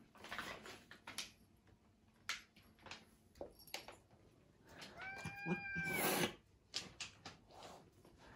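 A domestic cat meows once, a short, fairly level call about five seconds in, followed at once by a brief hiss. Faint scattered clicks and rustles come before it.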